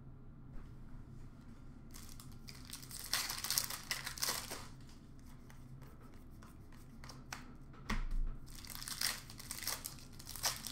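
Plastic wrappers of Upper Deck hockey card packs being torn open and crinkled by hand, in two spells of rustling, with a single thump about eight seconds in.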